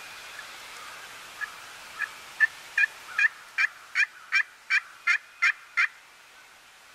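Wild turkey yelping: a series of about a dozen short yelps, roughly three a second, starting soft and growing louder over the first few notes.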